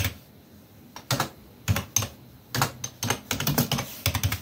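Computer keyboard keys being pressed: a quiet first second, then an irregular run of sharp clicks that come faster toward the end.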